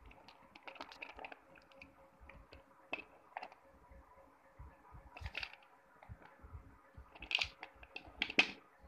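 Slate pencil pieces and slate bars clicking and clinking against each other and the steel bowl as a hand sorts through them. The clicks are scattered and light, with two louder clatters near the end.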